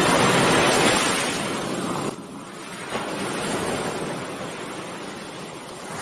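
Steady rushing noise of sea surf and wind, dropping in level about two seconds in.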